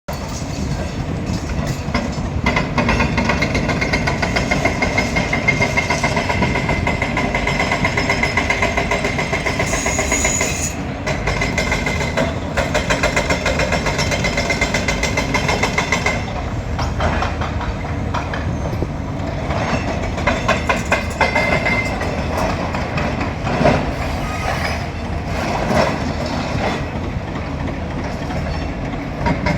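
JCB digger's diesel engine running steadily under load, with many short knocks and a few louder crashes near the end as the building's masonry is broken.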